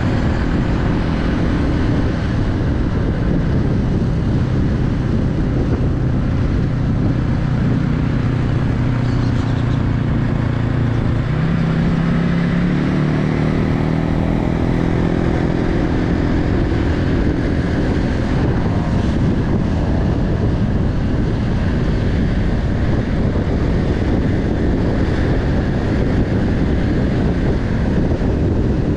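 Car engine running under a steady rumble of road and tyre noise, its pitch stepping up partway through.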